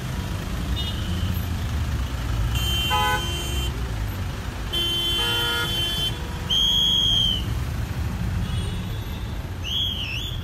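Road traffic rumbling steadily, with vehicle horns honking: two horn blasts of about a second each, then a louder, shrill toot and a short wavering shrill tone near the end.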